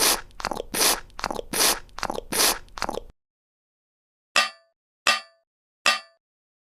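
A quick run of about eight noisy, scraping hits over three seconds, then a pause, then three short metallic clangs, evenly spaced, each ringing briefly.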